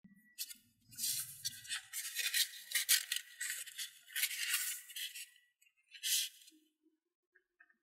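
A sheet of origami paper being folded and creased by hand: rustling bursts that run through the first five seconds or so, then one short rustle about six seconds in.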